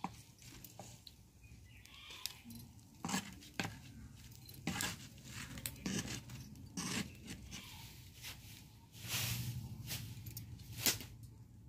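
Spatula scraping and knocking against a shallow frying pan as fried potato tikkis are lifted out: a series of separate short scrapes and taps, with a longer scrape about nine seconds in and a sharp click near the end.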